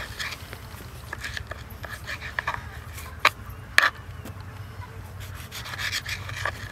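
Knife cutting tomatoes on a cutting board: irregular soft taps and scrapes of the blade against the board, with two sharper knocks a little past the middle.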